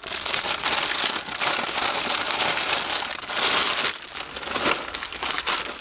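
Thin clear plastic packaging crinkling and rustling continuously as it is handled and unwrapped.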